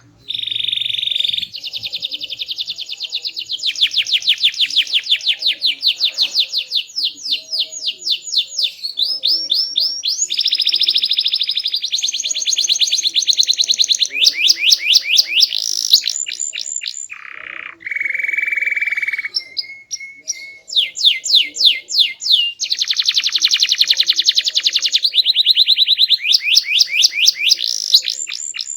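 A domestic canary singing a long, unbroken song of rapid trills and fast repeated notes, changing to a new phrase every second or two. Low, steady rolls come in partway through.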